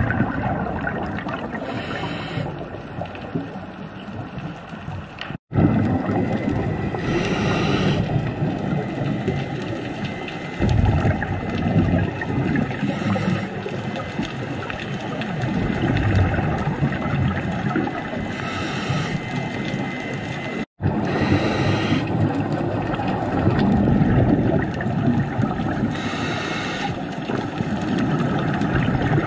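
Scuba diver's exhaled bubbles heard underwater through the camera housing: a steady gurgling rumble with a hissing burst of bubbles about every five to six seconds, one per breath. The sound cuts out for an instant twice.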